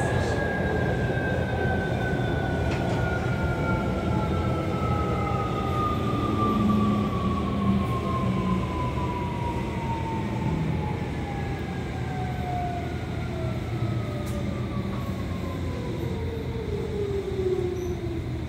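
Tokyo Metro 17000 series motor car's Hitachi SiC-VVVF inverter and traction motors whining as the train slows, the pitch falling steadily, over a steady rumble of wheels on rail heard inside the car.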